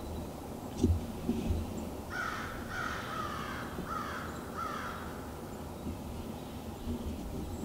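A crow cawing four times in quick succession, each harsh caw falling slightly in pitch. A single sharp knock comes just under a second in, before the caws.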